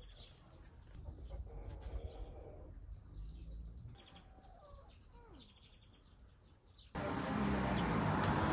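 Quiet outdoor ambience with faint bird chirps and calls. About seven seconds in, a loud steady rushing noise cuts in abruptly.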